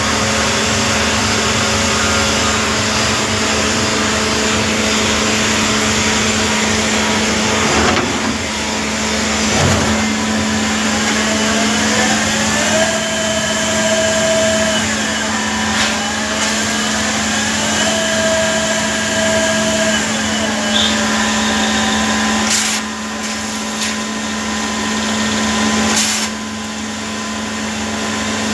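Machine tool running with a steady motor hum and noise. Twice, a higher whine rises, holds for about two seconds and then falls away, as the motor ramps up and back down.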